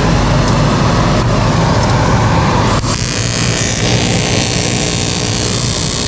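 Steady hum from a TIG welding setup with its water cooling; about three seconds in a sharp click as the arc strikes, then a TIG arc on aluminium buzzing steadily as the root pass is welded with AlMg5 filler rod.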